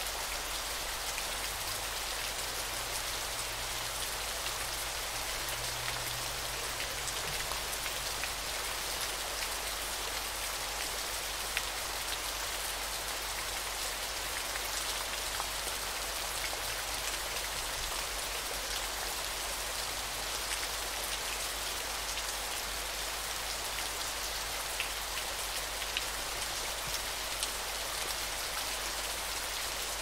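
Falling water splashing in a steady, even hiss, with small drop ticks scattered through it.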